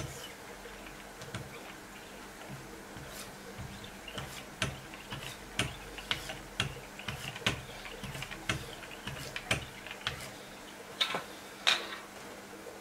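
Irregular light clicks and clacks of Wicked Edge sharpening paddles being handled on their guide rods, roughly one a second, with two louder knocks near the end.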